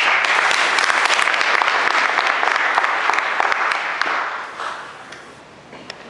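Audience applauding, starting suddenly and dying away about four to five seconds in.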